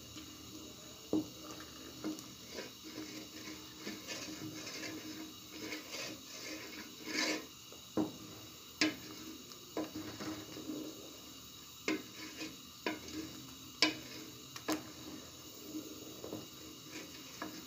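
Wooden spoon scraping and knocking against the inside of a metal pot while stirring milk that is being boiled down for khoya, with irregular sharp taps now and then. The scraping clears the pot's sides of thickening milk so it doesn't stick.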